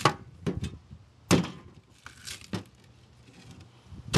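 Machete chopping the husk off a green coconut: a series of sharp, unevenly spaced chops, about six, the loudest about a second in, with a pause before the last one.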